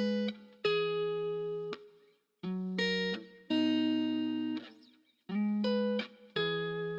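Background music: sustained chords in phrases of about a second each, separated by short breaks.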